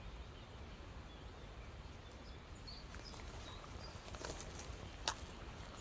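Faint outdoor ambience with a steady low rumble, a few faint high chirps about halfway through, and several soft clicks in the second half.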